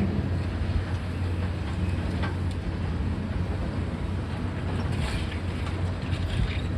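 Heavy demolition machinery running on site: a steady low diesel drone, with a few faint knocks and clatter over it.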